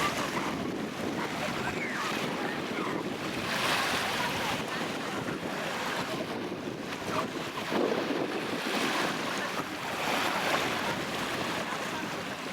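Black Sea surf: waves breaking and washing up the beach, the noise swelling and easing every few seconds.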